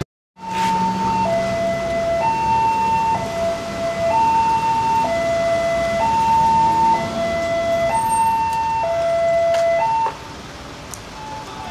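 Railway level-crossing electronic warning alarm sounding a two-tone hi-lo signal, switching between a higher and a lower tone about once a second, then cutting off near the end.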